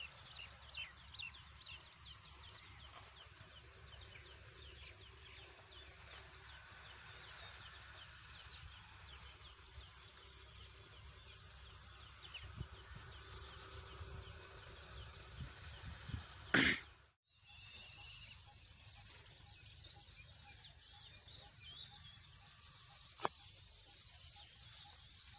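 Faint outdoor ambience of birds chirping and twittering over a low rumble of wind and phone handling. About two-thirds through comes one sudden loud knock or scrape of handling noise, and the sound cuts out for a moment; a sharp click follows near the end.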